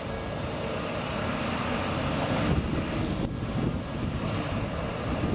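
A Toden Arakawa Line streetcar approaching on its track: a steady low rumble of wheels on rails and running gear that grows slightly louder as it nears.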